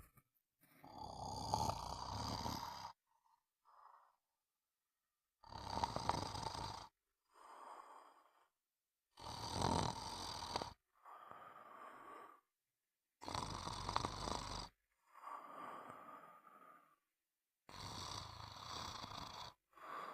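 A sleeper snoring in a slow, even rhythm: five loud, rattling snores on the in-breath about every four seconds, each followed by a softer, breathy out-breath.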